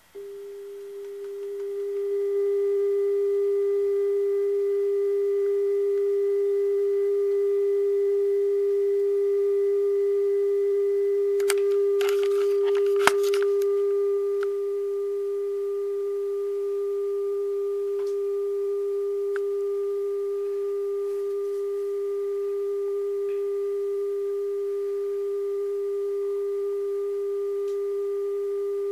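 A steady, pure mid-pitched tone from a TV-VCR's speaker during VHS playback past the end of the film, swelling over the first couple of seconds as the volume is turned up. A few clicks and rattles come about halfway through, and the tone drops slightly in level just after.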